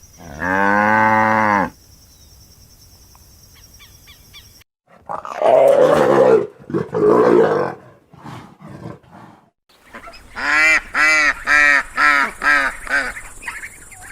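A run of separate animal calls: first one long pitched call, then a rougher, noisier call, then a rhythmic series of about seven short pitched calls.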